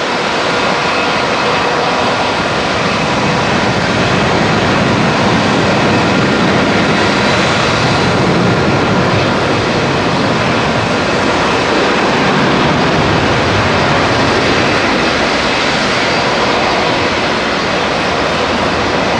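Boeing 747SP's four jet engines running at low taxi power as the airliner rolls past: a steady, loud jet noise with faint high whine tones over it, swelling slightly partway through.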